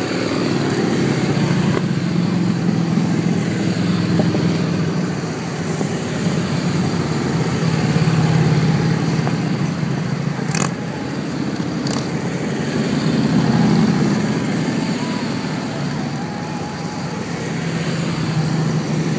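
A long column of Harley-Davidson V-twin touring motorcycles riding past one after another, the engine sound swelling and easing in waves as each group goes by. Two brief sharp clicks stand out about two-thirds of the way in.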